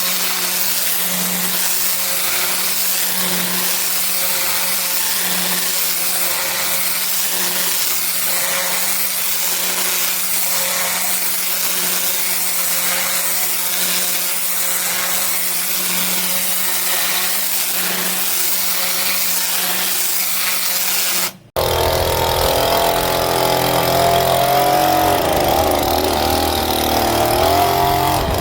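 Pressure washer turbo nozzle spraying onto block paving, a steady loud hiss over a low engine hum that swells about every two seconds. About 21 seconds in the sound cuts abruptly to an engine running with a wavering pitch.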